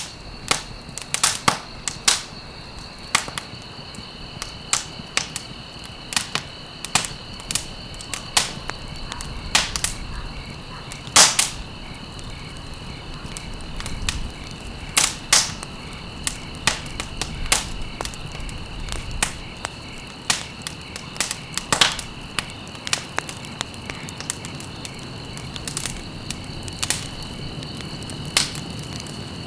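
Wood fire burning in a fireplace, crackling with irregular sharp pops and snaps over a low steady rustle, one pop louder than the rest about eleven seconds in.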